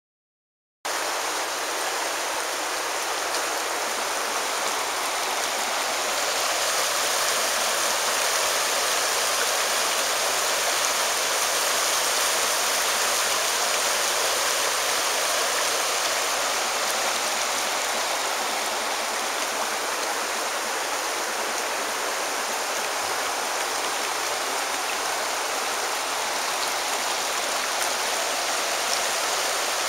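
Creek water rushing over rocky rapids, a steady, even rush that starts abruptly about a second in.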